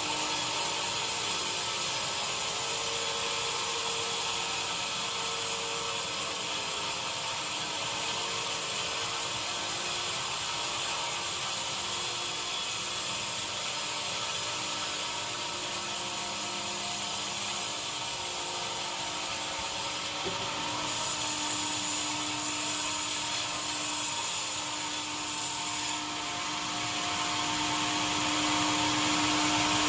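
Sawmill machinery running and sawing wood, a steady mechanical whir and hiss with some held tones; the sound changes abruptly twice in the second half.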